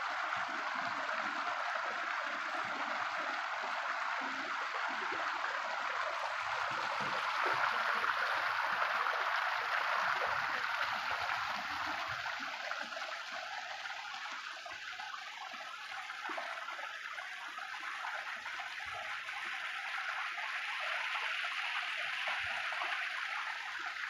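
Stream water rushing and splashing steadily over rocks in a small cascade.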